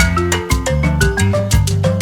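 Upbeat background music with mallet-percussion melody notes over a bass line and a steady beat.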